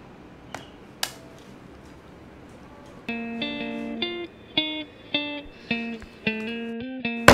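A couple of soft clicks from a laptop's keyboard and trackpad, then about three seconds in electric guitar music starts: a picked run of short notes over a held low note.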